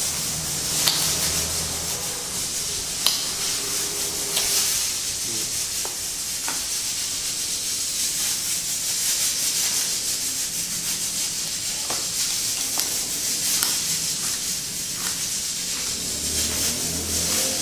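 Small kitchen knife peeling and slicing an onion on a wooden board, with scattered sharp clicks of the blade meeting the board, over a steady hiss.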